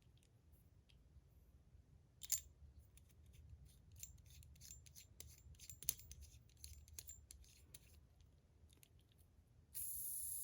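Metal Pillbug fidget parts being put back together by hand: faint, scattered light clicks and taps of metal on metal as the pieces are fitted and screwed together. Near the end comes a brief, louder scraping hiss lasting about a second.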